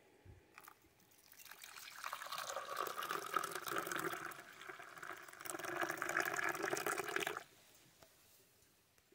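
Hot water poured from a camping kettle into a mug of coffee, a steady splashing stream that starts about a second and a half in, eases briefly midway, and stops abruptly a couple of seconds before the end.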